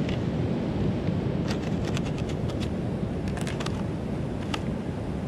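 Wind on the microphone and the wash of surf on a pebble beach, with a series of light, sharp clicks in the middle from a knife slicing a tomato against a leaf.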